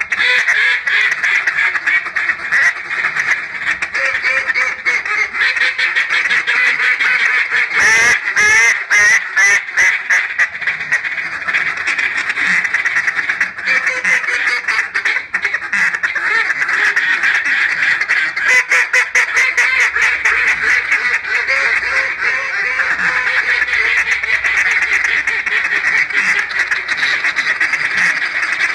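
Banded Honey Badger duck call blown continuously, quacking in imitation of a mallard hen, with faster runs of short notes in places.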